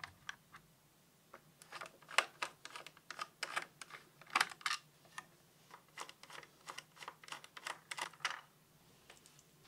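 Phillips screwdriver turning out the small screws that hold the plastic retention frame beside an AM4 CPU socket: a run of faint, irregular clicks and ticks from the driver tip and screws, stopping near the end.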